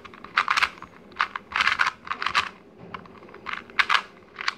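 A 2x2 speed cube being turned fast by hand: rapid, irregular bursts of plastic clicks as its layers snap round during a solve, with a brief lull about three seconds in.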